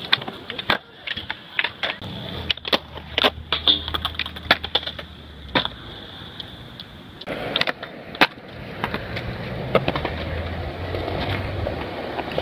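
Skateboards on concrete: wheels rolling with a steady low rumble in two long stretches, and many sharp clacks as boards strike the ground on pops and landings.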